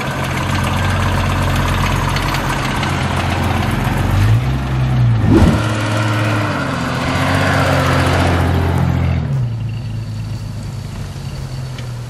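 1989 Jeep Cherokee XJ's 4.0-litre inline-six engine running steadily, its revs rising briefly and falling back about four to five seconds in, with a sudden thump just after; the engine sound fades toward the end.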